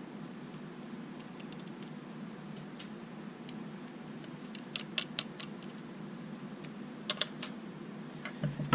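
Wrench tightening the nuts on a chainsaw's bumper spikes: a few faint ticks, then two short runs of sharp clicks about five and seven seconds in, over a steady low hum.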